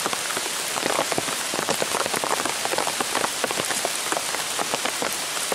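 Rain falling hard onto a makeshift umbrella rigged just over the camera. It makes a dense, steady patter of separate drop hits ricocheting off it.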